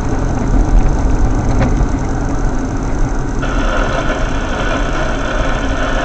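Steady engine and road rumble inside a moving car at highway speed. About halfway through, a brighter hiss joins the rumble.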